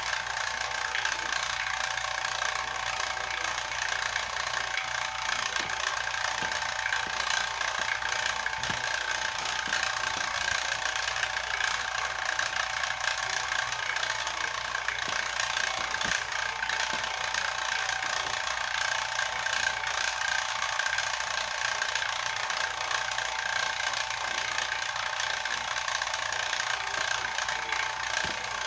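Electric rotary vane vacuum pump running steadily, pulling a vacuum on a glass bottle, with a steady whining tone over its hum.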